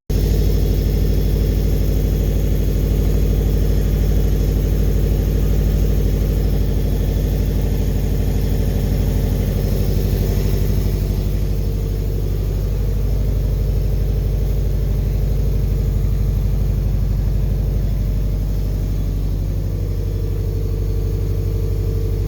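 Subaru Legacy's flat-four engine idling steadily, its low, even hum changing little, with a slight dip in level about twelve seconds in.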